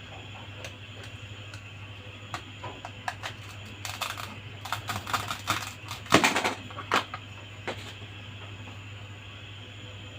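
Small plastic toy pieces being handled, giving a scatter of light clicks and taps that thicken into a quick flurry from about four to seven seconds in, over a steady low background hum.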